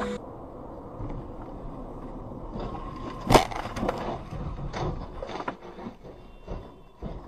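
Highway car crash: steady road noise, then about a third of the way in one loud impact, followed by a few seconds of crunching, scraping and clattering as a car rolls onto its side and slides along the road, the knocks thinning out toward the end.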